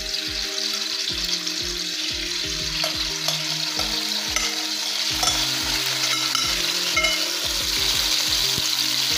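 Marinated chicken pieces sizzling in hot oil in a metal wok as they are spooned in, with the spoon scraping the bowl. The sizzle grows a little louder as more chicken goes in. Soft background music plays underneath.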